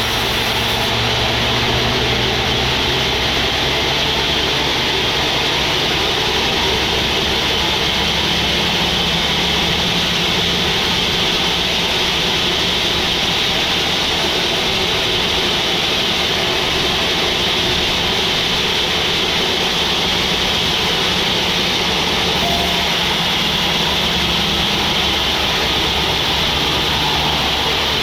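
Sawmill machinery running steadily: a low engine drone that shifts pitch a few times under a constant high hiss.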